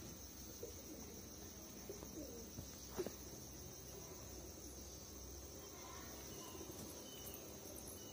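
Crickets trilling steadily at one high pitch, with a single faint click about three seconds in.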